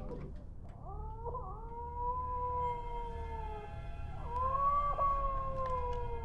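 Two long, drawn-out wails, each sliding slowly down in pitch. The first begins about a second in and the second about four seconds in.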